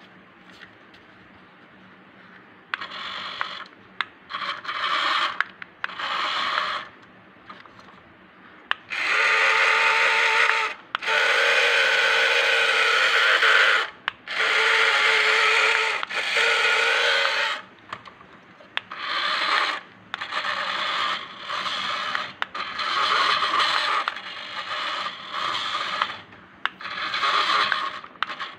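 Small electric gear motors of a homemade model combine harvester whirring in repeated start-stop bursts as the radio remote's buttons are pressed. There is a long run of several seconds near the middle.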